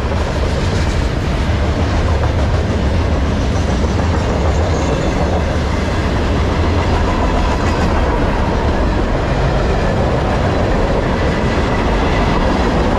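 Freight train cars rolling past on the track, their steel wheels on the rails making a steady, deep rolling noise.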